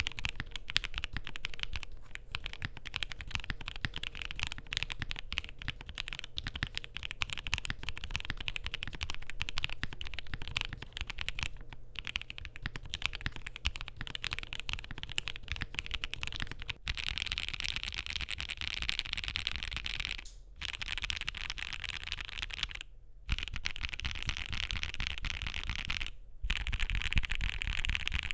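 Keychron Q6 Max mechanical keyboard with lubed MOONDROP x G Square Lunalight switches, a polycarbonate plate and foam mods, being typed on quickly and continuously: a dense stream of soft keystroke clacks with a few brief pauses. About halfway through, the typing turns brighter.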